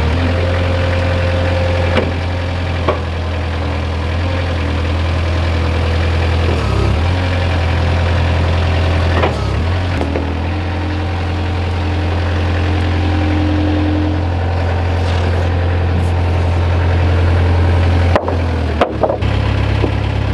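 Engine of a truck-mounted forklift running steadily with a low hum as it lifts and carries a stack of lumber. A few short knocks and clunks, with a cluster near the end.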